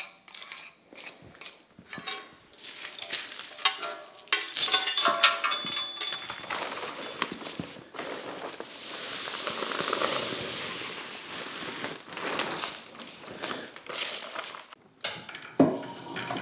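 Scraping and rubbing on a cast-iron milling machine knee, with metal clinks and clicks, as debris is cleaned off it; a steady hiss runs for a few seconds about halfway through, followed by more clatter.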